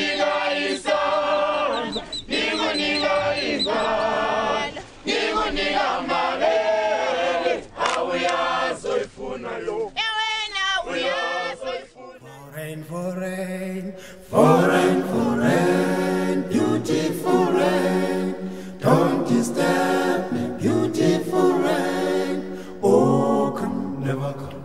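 A cappella choir singing, as a music track. About ten seconds in the singing thins out, and a new, louder sung passage starts near fourteen seconds.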